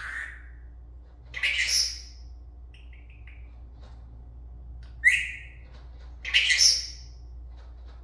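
Senegal parrot calling: three loud, harsh calls about a second and a half, five and six and a half seconds in, with a few soft short chirps between the first two.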